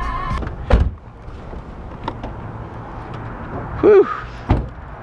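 Music in a car cuts off shortly after the start, followed by a sharp thump. After a quieter stretch there is a brief vocal whoop near the end and then a car door thunks shut.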